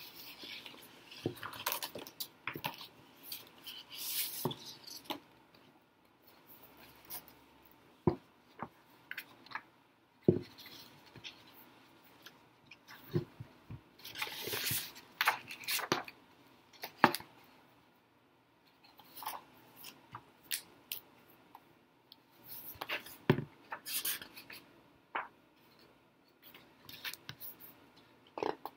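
A hardcover picture book being handled and opened: paper rustling as pages are turned, with scattered taps and knocks of the book against hands and surfaces.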